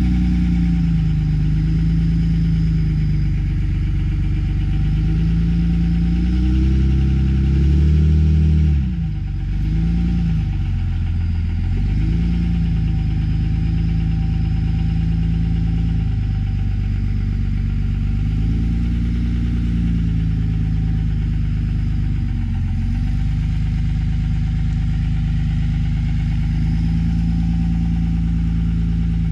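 A motor engine running at idle, its pitch rising and falling a few times, around a third of the way in and again past the middle.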